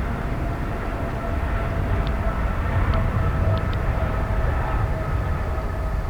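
Jet airliner engines running at an airport: a steady low rumble with a faint steady whine above it.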